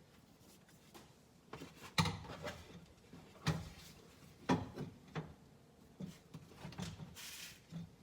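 Irregular knocks and clicks of hard plastic and metal parts being handled inside a stripped car door, the loudest about two, three and a half and four and a half seconds in, with a short scraping rustle near the end.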